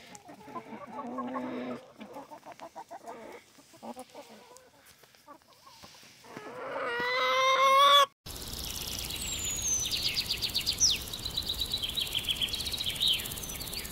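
Backyard hens clucking softly, with scattered sharp taps, then one hen giving a long, rising, drawn-out call. The sound cuts off abruptly about eight seconds in and is replaced by high chirps and rapid ticking.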